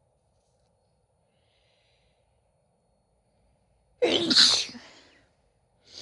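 A person sneezing: one loud, voiced sneeze about four seconds in that trails off over about a second.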